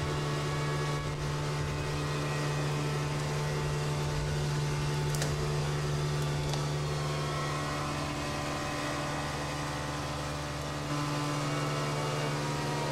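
Motorboat engine running steadily at constant speed, a low even hum.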